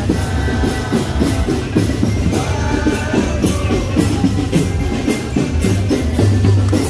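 Drum band playing: marching bass and snare drums beat out a steady, busy rhythm, with a melody line heard over them at times.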